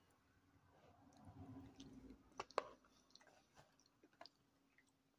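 Faint eating sounds from a person taking a first bite of microwaved shepherd's pie: a soft rustling stretch, then two sharp clicks of a utensil on the plastic container about two and a half seconds in, followed by quiet chewing with small ticks.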